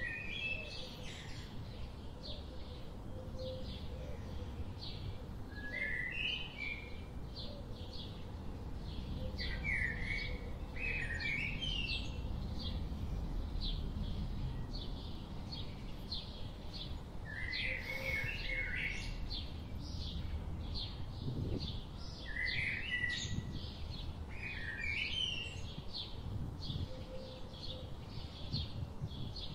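Birds chirping outdoors in short clusters of quick notes every few seconds, over a steady run of short high notes repeating about twice a second. A low rumble of wind on the microphone sits underneath.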